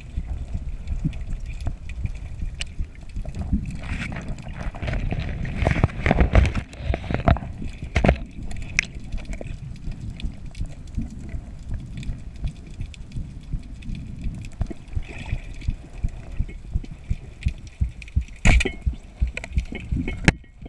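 Underwater sound picked up by a camera in its waterproof housing. A muffled low rumble of water moving past is dotted with frequent sharp clicks and knocks. There are louder, sloshing surges about four to seven seconds in, and a sharp knock near the end.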